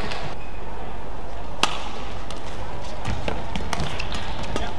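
Badminton play: a sharp racket strike on a shuttlecock about a second and a half in, then several lighter clicks and taps over the steady hum of a large hall.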